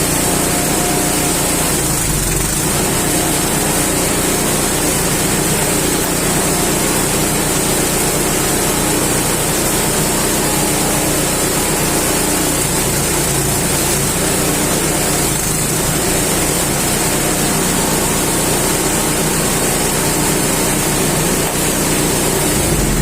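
Engine-driven coconut dehusking machine running steadily, the engine's hum and the machine's hiss unbroken throughout.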